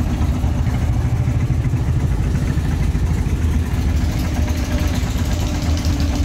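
Wooden fishing boat's engine running steadily: a loud, low rumble with a fast, even pulse.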